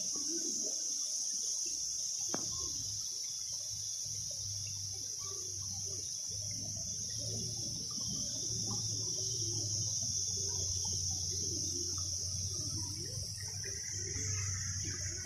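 Steady, high-pitched insect drone from a chorus of cicadas or crickets, with a small stream trickling over pebbles faintly underneath.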